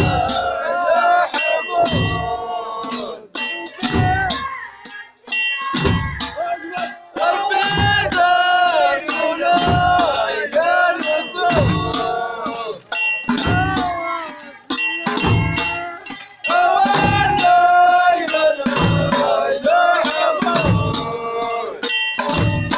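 Ahwach music: men singing long, bending lines over a hand-struck frame drum, which gives a deep thump every one to two seconds, with quick sharp clicks of percussion on top.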